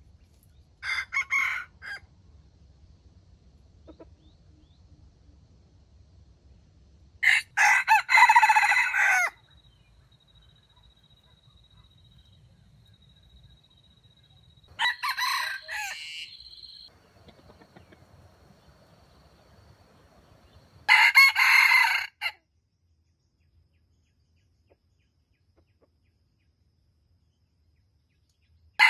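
Junglefowl roosters crowing: four short, choppy, stuttering crows spaced roughly six seconds apart, the loudest about eight seconds in.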